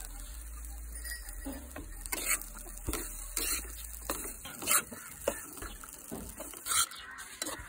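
A flat metal spatula scraping and knocking against a metal kadai as cooked rice is stirred and tossed, in irregular strokes, with a few sharper knocks a little past the middle and near the end.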